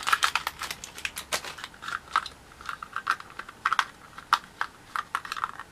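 Rapid, irregular plastic clicks and rattles of a small plastic toy cat carrier being handled and opened to get the figure out, thickest in the first second and thinning toward the end.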